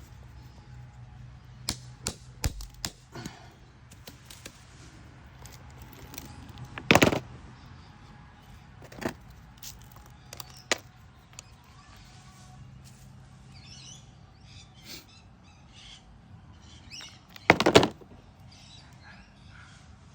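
Stone pieces knocking and clicking against each other as they are handled and fitted together: scattered light clicks, a loud knock about seven seconds in, and a short cluster of loud knocks near the end.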